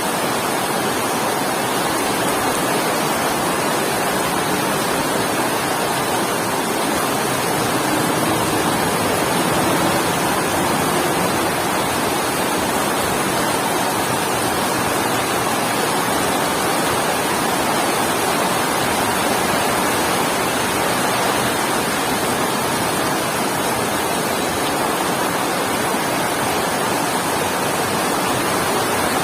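Heavy rain falling steadily as a dense, even hiss.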